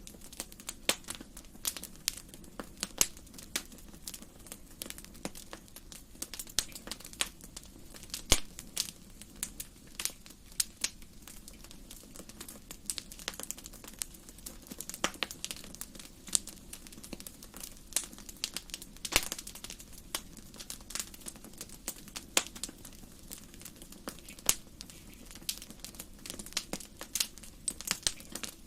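Wood fire crackling in a fireplace: irregular sharp pops and snaps over a steady low hiss of burning logs.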